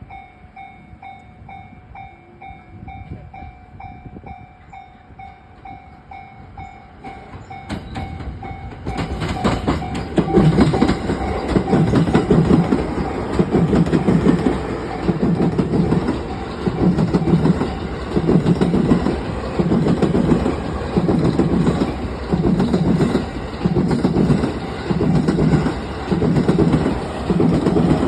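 A Japanese level-crossing bell rings at about two strikes a second. Eight to nine seconds in, an E217-series electric commuter train comes through and drowns it out. The train's cars pass with a steady clickety-clack of wheels over rail joints, about one beat every second and a quarter, getting slightly quicker as the departing train gathers speed.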